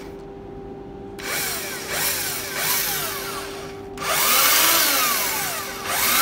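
AEG cordless drill, powered from a 24 V transformer and rectifier in place of its battery and mounted in a homemade drill-press stand, running in forward rotation. It is switched on in three short bursts, each winding down in pitch as the motor coasts. About four seconds in it runs for around two seconds, winds down, then starts again at the end. A steady hum runs underneath.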